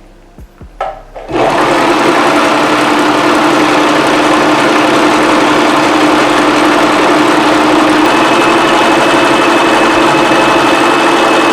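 Singer Promise 2 (1512) sewing machine starting up about a second in and then running steadily at speed, stitching through hair wefts, with a steady motor hum.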